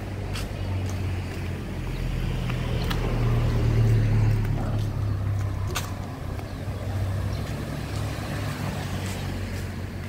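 A motor vehicle's engine running close by: a steady low hum that swells to its loudest about four seconds in and then eases off, as a slow vehicle passing would. Faint scattered ticks sound over it.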